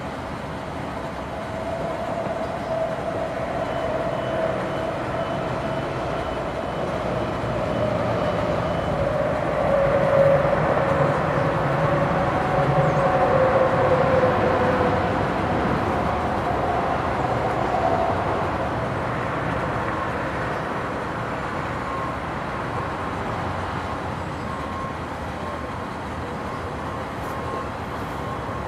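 A large vehicle passing by: a steady rumble that swells to its loudest about halfway through and then fades, with faint drawn-out tones that slide slowly down in pitch.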